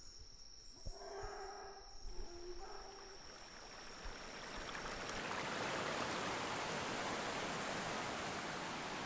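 Rushing water of a limestone waterfall cascade: a steady noise that fades in about four seconds in and holds. Before it come quieter jungle sounds, with a few faint calls and a thin steady insect whine that stops about five seconds in.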